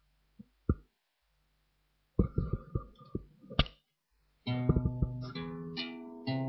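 Guitar: a few muted knocks and plucked notes, then about two-thirds of the way in a chord is strummed and rings out, slowly fading, with more notes following.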